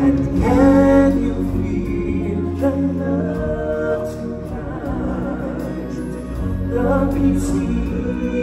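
Live stage-musical music: singing voices holding and bending long notes over instrumental accompaniment with a deep bass.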